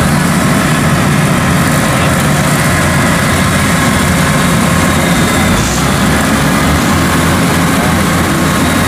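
Kubota DC-105X combine harvester's diesel engine running steadily as the tracked machine drives off across the field.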